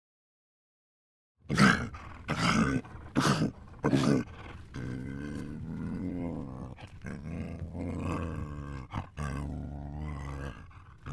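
A large animal's deep calls: four loud, short calls about a second apart, then a long, low, pitched call broken twice.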